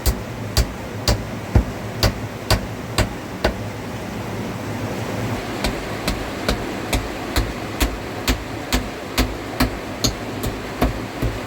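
Rapid, even hammering, about two blows a second, with a pause of about two seconds partway through, over a steady rushing background.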